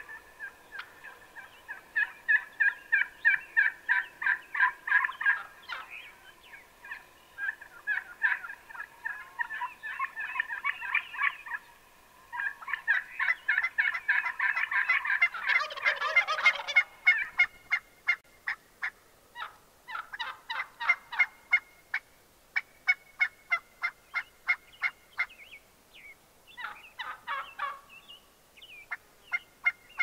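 Gould's wild turkeys calling: long runs of rapid, evenly spaced yelps and clucks, with a louder rattling gobble about halfway through.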